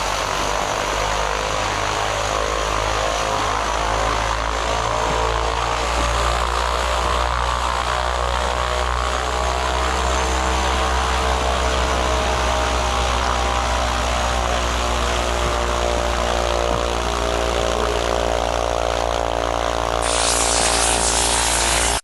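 de Havilland Canada Twin Otter's twin turboprop engines running, a steady drone of propeller tones whose pitch drifts slightly. A harsher hiss joins about two seconds before the end.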